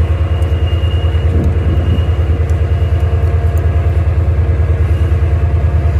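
Diesel locomotive engine idling: a loud, steady low rumble that pulses evenly.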